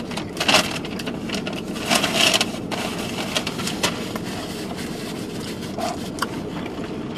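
Fast-food packaging, a paper napkin and a drink cup being handled while eating: short rustles and clicks, loudest about half a second and two seconds in. Under them runs the steady low hum of the car's air conditioning.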